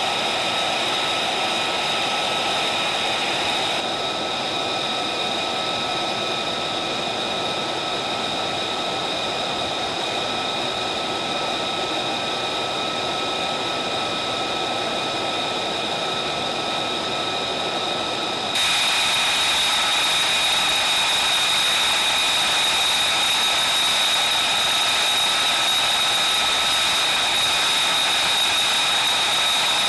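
F-35B's F135 turbofan engine running at idle: a steady high whine over a rush of jet noise. The sound shifts abruptly twice, about four seconds in and again just past halfway, becoming louder and brighter the second time.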